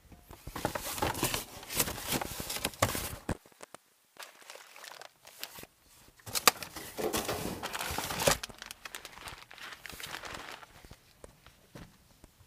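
Plastic packaging crinkling and rustling as items are handled and moved about in boxes, in two bouts with scattered clicks and knocks and a short pause between them.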